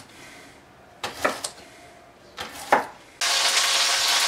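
A chef's knife cuts celeriac on a wooden cutting board in a few sharp chops. Just after three seconds a steady sizzle starts abruptly: wild boar leg searing in hot fat.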